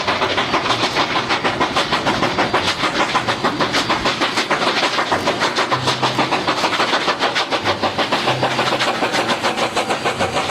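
Train running, heard as a steady, fast, even clatter of several beats a second.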